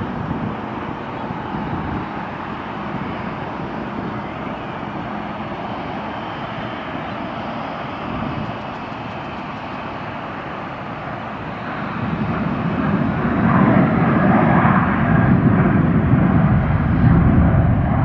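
Jet airliner on its landing approach: a steady engine rumble that swells noticeably louder about two-thirds of the way through as the aircraft comes closer.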